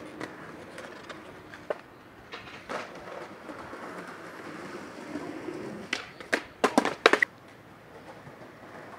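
Skateboard wheels rolling, with a few faint clicks, then a quick run of five or six loud, sharp clacks of the board hitting the ground about six to seven seconds in.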